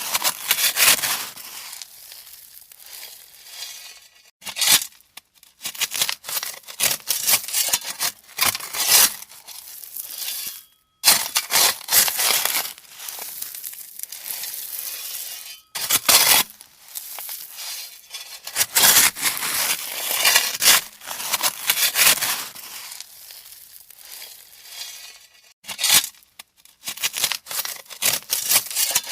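A shovel working gravel: repeated crunching, scraping strokes as the blade digs in and the stones pour off, some short and some a second or two long, with brief pauses between.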